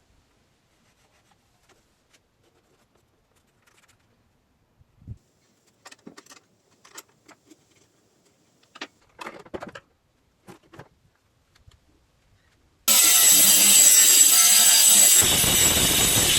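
A few light knocks and clicks of wood and tools being handled, then an electric saw starts abruptly near the end and runs loud and steady. A couple of seconds later its sound grows deeper and fuller as it starts cutting into the wood.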